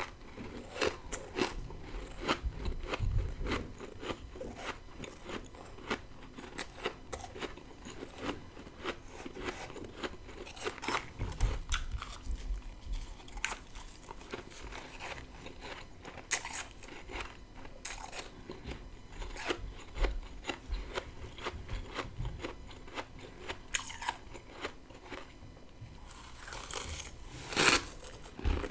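Close-up biting and chewing of freezer frost, a dense run of sharp crackly crunches, with a louder burst of bites near the end.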